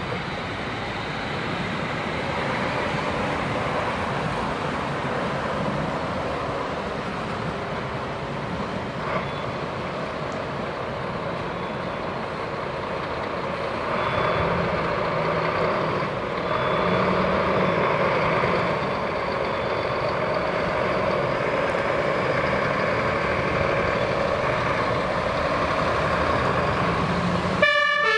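Diesel engines of Scania fire trucks running as the trucks pull out of the station, growing louder about halfway through and again a couple of seconds later. Right at the end a two-tone air-horn siren starts.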